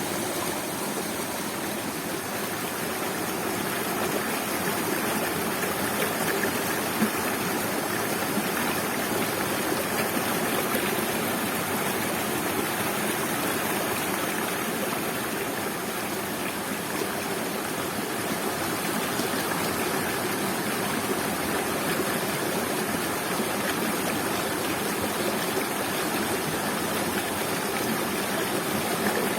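Waterfall splashing steadily, a constant rush of falling water with no change in level.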